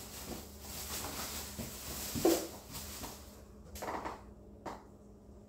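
Rustling and handling of kitchen items at the counter, with one sharp knock a little over two seconds in and a couple of softer knocks near the end.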